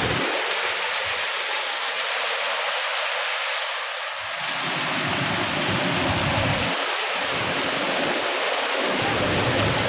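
Waterfall rushing in full flow, a steady loud roar of falling water, with patches of low rumble coming and going.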